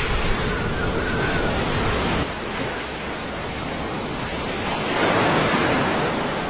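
Steady rushing noise like surf. It drops a little past two seconds in and swells again about five seconds in.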